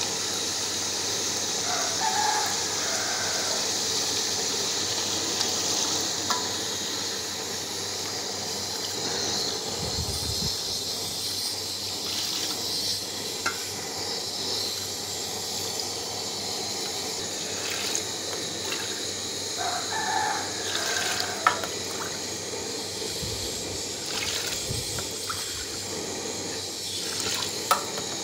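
Mutton broth (yakhni) poured from a small steel pot into a large aluminium pot of masala-cooked mutton: a steady splashing pour of liquid, with a few light knocks scattered through.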